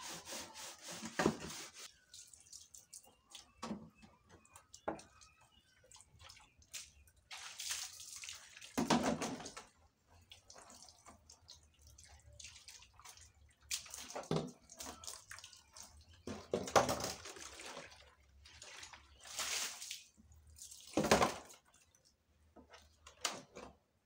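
Water splashing and draining as plastic jerrycans and trays are rinsed and scrubbed at a tap, in irregular bursts several seconds apart, with knocks and scrapes of the hollow plastic containers being handled.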